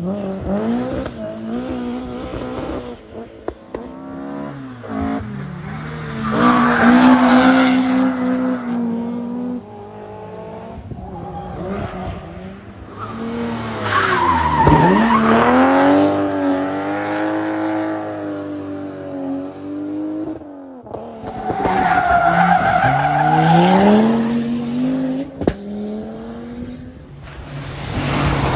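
Historic rally cars running a stage one after another, their engines revving up and dropping back through gear changes as each one passes, about three loud passes, with tyres squealing at times.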